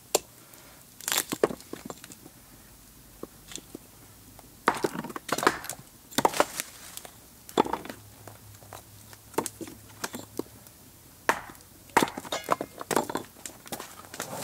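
A hatchet splitting small logs into kindling on a wooden tree-stump chopping block, with split pieces knocking against the stump: an irregular series of sharp wooden knocks and cracks, a dozen or more, with quieter wood-handling noises between them.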